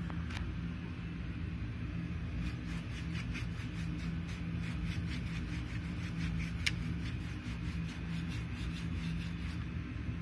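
A steady low machine hum, with a run of small rapid clicks starting about two and a half seconds in and stopping near the end, one sharper click in the middle.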